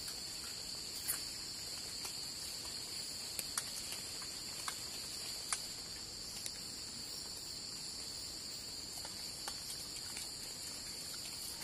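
Crickets calling at night: a steady, high, shrill trill that holds unchanged, with a scattered handful of faint ticks.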